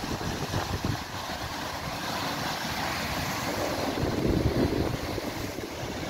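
Sea surf washing and breaking over rocks, with wind buffeting the microphone; the rush grows louder about four seconds in.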